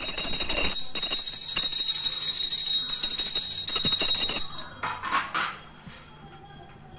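Brass pooja hand bell rung rapidly and continuously, the clapper striking many times a second over a bright, sustained ring. The ringing stops about four and a half seconds in.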